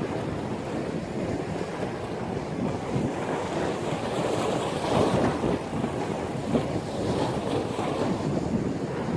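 Sea waves breaking and surging in a windstorm, with strong wind buffeting the microphone. The noise is steady, swelling louder about five seconds in.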